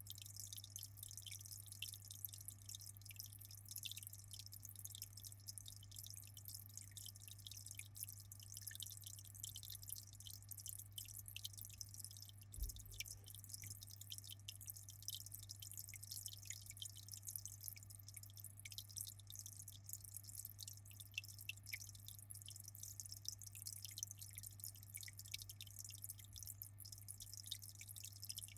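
Quiet aquarium water dripping and trickling, a dense stream of tiny splashes, over a steady low hum.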